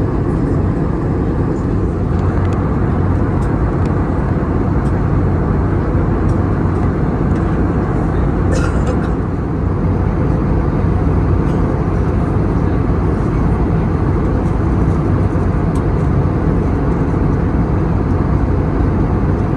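Steady rushing engine and airflow noise heard inside the passenger cabin of an Airbus A321neo in flight, with a few faint clicks and one brief clatter about eight and a half seconds in.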